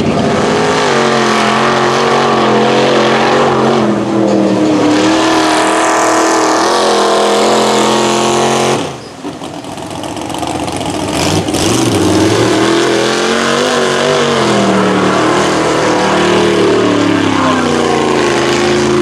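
Lifted mud truck's engine revving hard, its pitch rising and falling as it churns through the mud pit, over the rush of mud and water flung from the big tires. The engine drops off sharply about nine seconds in, then builds back up to high revs.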